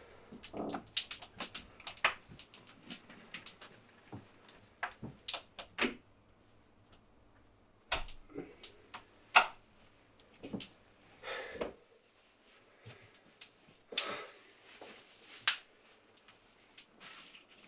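Irregular clicks and knocks of a front door and its latch being handled, mixed with short rustles of a backpack being moved and set down.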